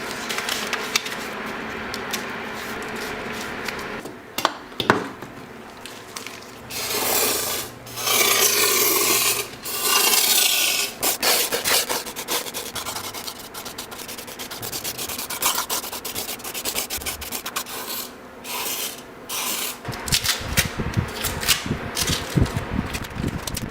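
Scraping, filing and sanding on the parts of a 1938 Delta jointer being restored. The work comes in separate stretches: several louder, hissing passes of abrasion about seven to eleven seconds in, and a run of sharp clicks and knocks near the end.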